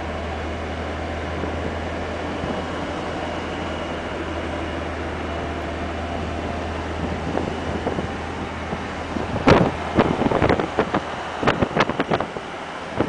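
Vehicle engine and road noise heard from inside the cab while driving, a steady low drone with a hiss of tyres and wind. In the last few seconds a quick run of sharp knocks and wind gusts cuts across it and is the loudest part.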